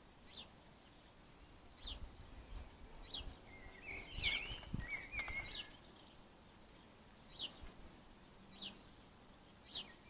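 Small bird calling: a short, high, falling note repeated about once a second, with a louder run of twittering calls around the middle.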